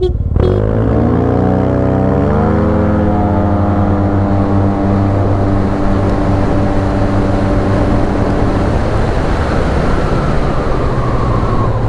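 Yamaha TMax 530 scooter's parallel-twin engine at full throttle from a standing start. A short horn beep opens, then the revs climb quickly over the first two seconds or so and hold at a steady pitch while the CVT lets the scooter gather speed, with heavy wind noise on the microphone. Near the end the note drops as the throttle eases.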